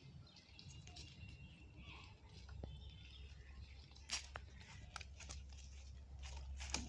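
Faint scattered clicks and rustles from someone walking along a leaf-strewn path carrying a plastic crate of fish, over a steady low rumble, with faint bird chirps early on.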